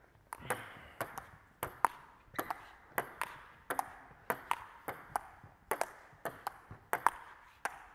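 Table tennis rally on a Joola 2000-S table: a steady run of sharp clicks, the plastic ball striking the bats and bouncing on the tabletop, about three or four a second, with the echo of a large hall.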